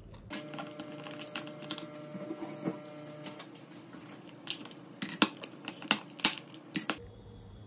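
Ice cubes being worked out of a silicone ice tray with small crackles and clicks, then several loud, sharp clinks in the second half as the cubes drop into a tall drinking glass.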